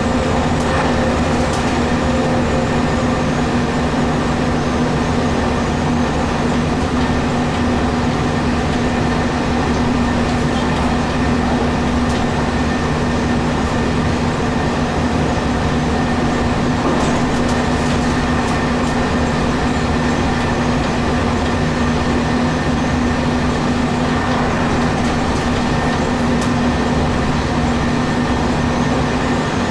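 JR Kyushu 817 series electric train running at steady speed, heard from behind the driver's cab: the continuous rumble of wheels on track, with a steady hum held throughout.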